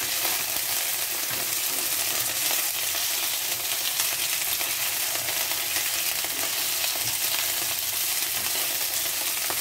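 Cornstarch-coated chicken pieces sizzling steadily in hot oil in a nonstick frying pan, with occasional light scrapes and ticks as the pieces are turned with a metal utensil.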